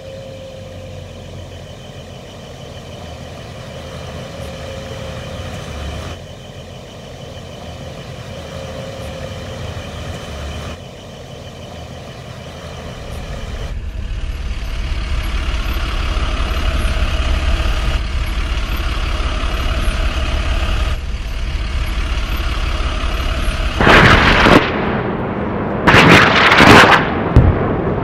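Dubbed-in truck engine sound effect running, growing louder and heavier about halfway through. Several loud blasts follow in the last few seconds.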